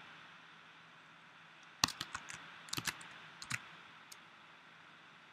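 A few sharp computer keyboard keystrokes and clicks, in small quick clusters between about two and four seconds in, over faint steady hiss.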